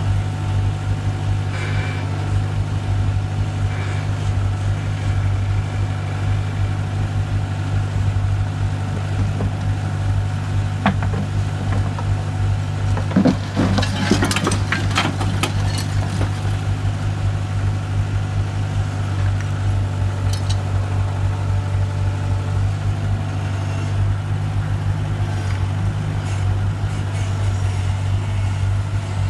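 Skid-steer loader engine running steadily. About halfway through, a burst of clattering impacts as chunks of broken concrete and rubble tip out of the raised bucket into a metal truck bed.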